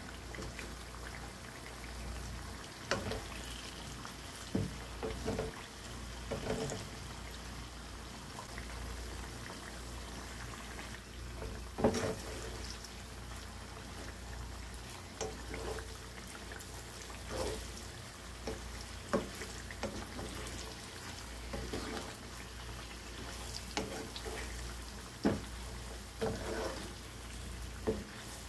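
Sweet potato slices frying in hot oil and melted brown sugar, with a steady sizzle, stirred by a wooden spatula that knocks and scrapes against the pot every second or two.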